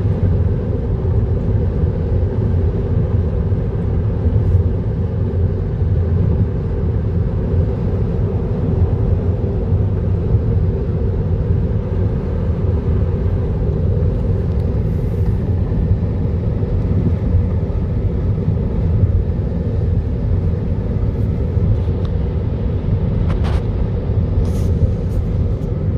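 Steady low rumble of a car driving at speed, heard from inside the cabin: tyre and road noise with the engine underneath. A few faint ticks near the end.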